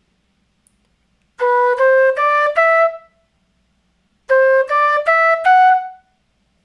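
Quena, the Andean notched flute, playing two runs of four notes, each run climbing step by step, with a pause between them: a scale exercise in ascending four-note groups.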